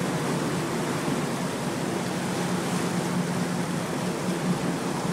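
Boat engine running with a steady low drone, under the rush of churning water along the hull.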